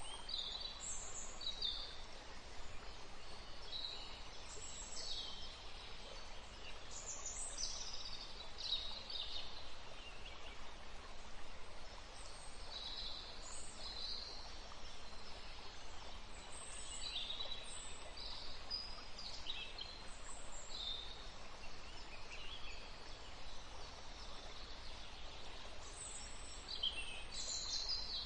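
Wild birds calling: many short, high chirps, several falling in pitch, repeated irregularly over a steady background hiss.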